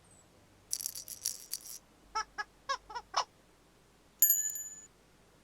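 Playful children's-show sound effects: a brief shaking rattle, then five short squeaky notes, then a single bright bell-like chime that rings and fades.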